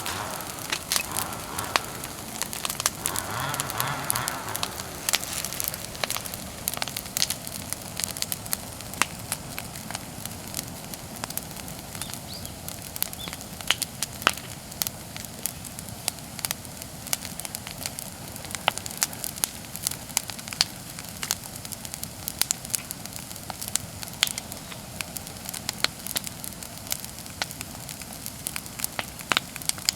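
Bonfire of cut persimmon wood burning, crackling steadily with many sharp, irregular pops.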